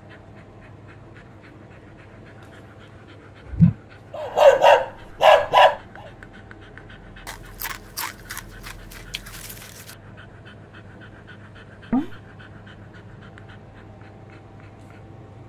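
A dog panting quickly and evenly throughout. Over it, a low thump, two short noisy bursts, then a run of sharp clicks come in the middle.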